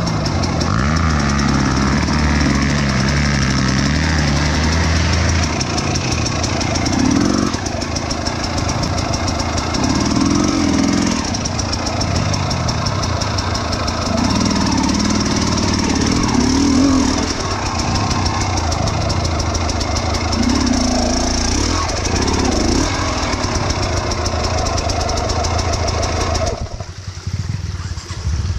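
Trail motorbike engines running and revving, the pitch rising and falling again and again. The sound drops briefly near the end.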